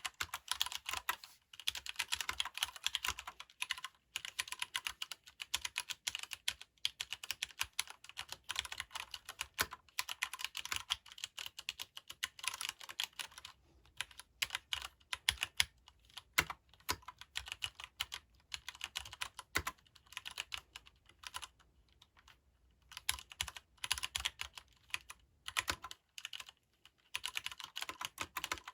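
Typing on a Leopold FC750R PD mechanical keyboard with Cherry MX Brown switches, which are tactile but non-clicky: rapid runs of keystroke clacks with a few short pauses, the keystrokes thinning out for a few seconds about two-thirds of the way through.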